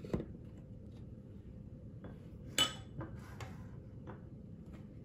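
A spatula and a plastic food processor bowl being handled: a few faint taps and clicks, with one sharp clink about two and a half seconds in.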